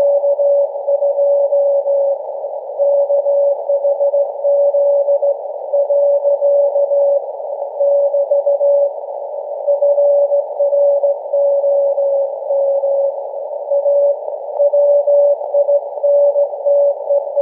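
Morse code from SAQ Grimeton's Alexanderson alternator on 17.2 kHz VLF, received on a software-defined radio and demodulated in LSB as a steady tone of about 600 Hz keyed on and off in slow dots and dashes. Narrow-band radio static hisses beneath it.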